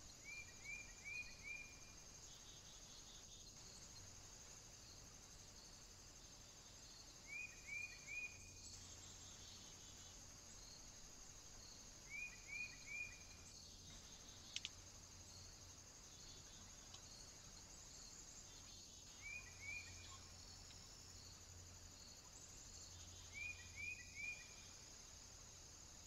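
Faint woodland background with a steady high-pitched insect drone, broken five times by a short run of three or four quick descending bird chirps. A single sharp click sounds about midway.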